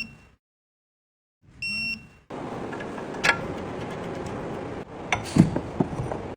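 Two short electronic beeps of one steady high pitch, about a second and a half apart, followed by a steady noisy hiss with a sharp click and several knocks near the end.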